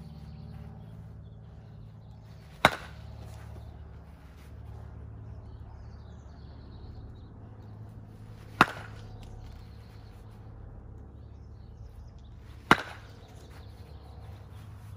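Baseball bat hitting baseballs: three sharp hits, the second about six seconds after the first and the third about four seconds after that, each with a brief ring.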